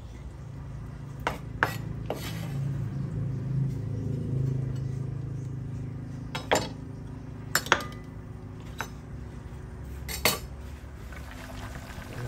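A steel kitchen knife and a ceramic plate clinking and knocking as chopped chives are scraped off a wooden cutting board onto the plate: a scattering of short, sharp clinks, a few in quick pairs, over a steady low hum.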